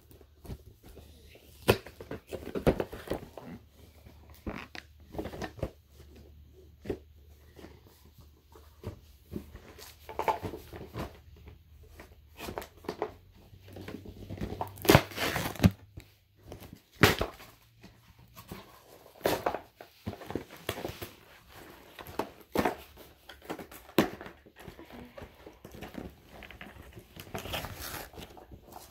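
Toy packaging being unwrapped by hand: plastic and card crinkling and tearing in irregular bursts, with scattered clicks and rustles, a few louder crackles about halfway through.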